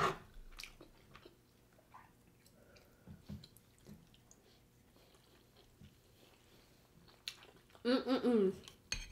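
Faint mouth sounds of chewing spoonfuls of jollof rice and stew, with a sharp click of a metal spoon at the start and a few faint clicks after. A short hummed 'mm' comes near the end.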